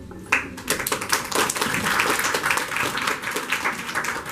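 Audience applauding. The clapping breaks out suddenly just after the start and thins out near the end.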